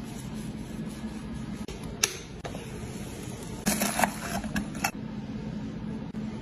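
A large kitchen knife crunching down through a crisp, flaky baked pastry crust, crackling for about a second around the middle. A single sharp click comes about two seconds in, and a steady low hum runs underneath.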